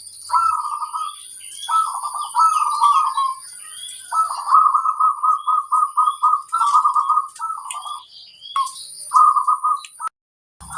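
Zebra doves (perkutut) calling in repeated rapid trilled phrases of quick pulsed notes, one phrase after another, with small birds chirping higher up and a steady thin high-pitched tone behind. The sound cuts out briefly near the end.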